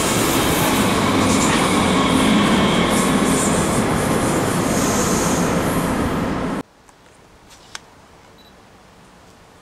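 Electric passenger trains running past a station platform, a regional multiple unit on the far track and a red S-Bahn Stuttgart unit close by, with steady rolling and traction noise. It cuts off abruptly about two-thirds of the way through, leaving a quiet background with a few faint clicks.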